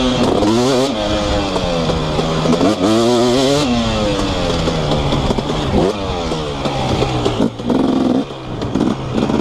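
2018 KTM 250SX two-stroke dirt bike engine with an FMF Powercore 2 exhaust, ridden hard: the revs rise and fall again and again through the gears, with the throttle rolled off briefly near the end.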